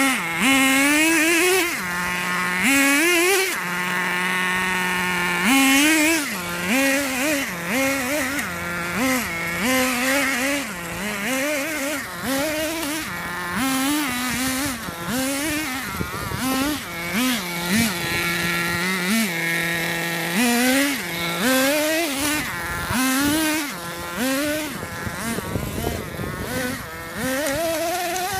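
Radio-controlled car's motor revving up and down over and over, its pitch rising and dropping every second or two, with a few brief stretches held at a steady pitch.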